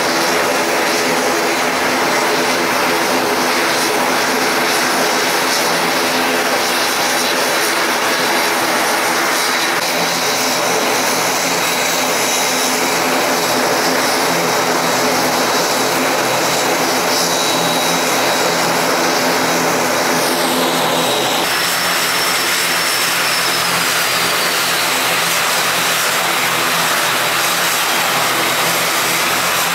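ATR 72 turboprop engines (Pratt & Whitney Canada PW127) running at taxi power: a steady propeller drone with evenly pitched tones and a high turbine whine. About two-thirds of the way through the sound changes, and a high whine slides slowly down in pitch.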